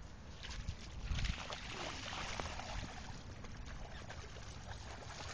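Water splashing as a dog wades through shallow lake water, with low rumbles of wind on the microphone about a second in.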